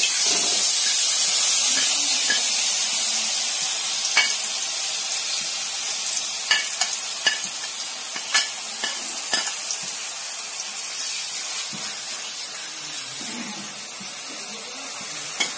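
Chopped onion, green chilli and ginger sizzling loudly as they hit hot oil in a pan. The sizzle starts suddenly and slowly eases, with a few sharp clicks of a steel spoon scraping and tapping as the rest is pushed in and stirred.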